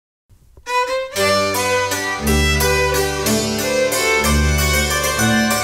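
Appenzell string-band folk music (Streichmusik): violin over struck hammered dulcimer (Hackbrett), with sustained bass notes joining about two seconds in. The music starts just under a second in, after a brief silence.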